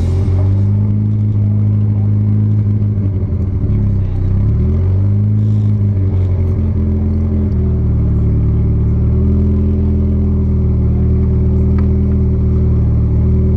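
Turbocharged 16-valve four-cylinder engine of a VW Corrado idling steadily. Its pitch dips and comes back up about four seconds in.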